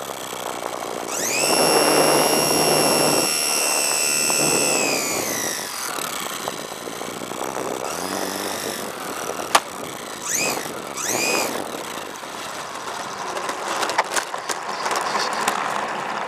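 Electric motor of a HobbyZone Super Cub RC plane whining as it spins the propeller, heard from on board with wind rushing past. It throttles up about a second in, holds, then winds down as the plane comes in to land. Two short throttle blips follow, then a sharp click and a few clicks near the end as it sets down on pavement.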